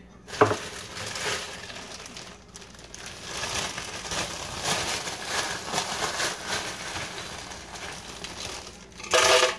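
Plastic bag crinkling and rustling as it is handled and opened, with a sharp knock about half a second in and a short, louder burst near the end.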